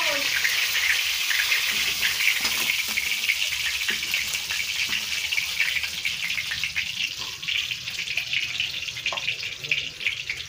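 Fish frying in hot oil in an iron kadhai: a steady sizzle thick with small crackles and pops, easing off a little in the second half.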